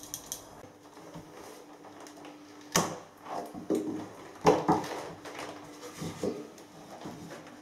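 Copper pipe knocking and scraping against timber floorboards and joists as it is worked into the floor void: a few separate knocks and scrapes, the sharpest about three seconds in and again about halfway through.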